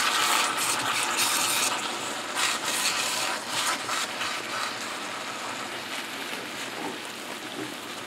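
Ham steak in salsa verde sizzling and simmering in a cast iron skillet, with a spatula stirring and scraping through the sauce. The sizzle is loudest for the first couple of seconds, then eases to a steadier, quieter bubbling, with a few short scrapes or taps in the middle.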